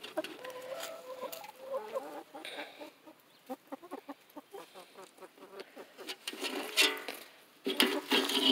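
Hens clucking in a run of short, repeated clucks, with a louder, longer call near the end.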